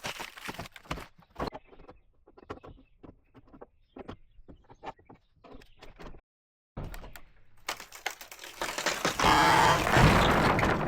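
Irregular sharp knocks and clicks for about six seconds, then after a short pause a loud, dense noise with no clear pitch over the last three seconds that cuts off suddenly.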